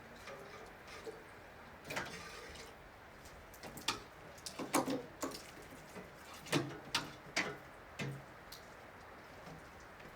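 Water dripping irregularly: scattered sharp drips and taps, some landing with a duller knock, bunched about halfway through and again a couple of seconds later, over a faint steady hiss.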